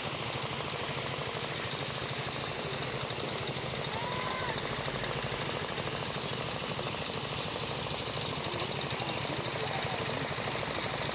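A small engine running steadily at a constant speed, with a fast, even beat.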